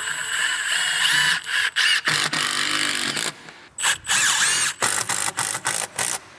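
Cordless power driver running screws through a wooden cleat into the wall: one long run of about three seconds with a rising whine, then a shorter run and a few quick trigger bursts near the end.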